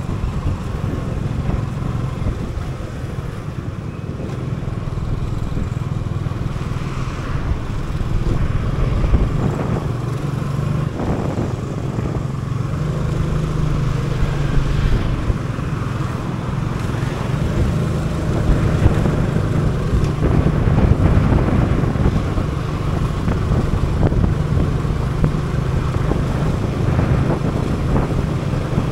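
Motor scooter's small engine running while riding in city traffic, its hum shifting a little in pitch with the throttle, over a low rumble of wind and road noise.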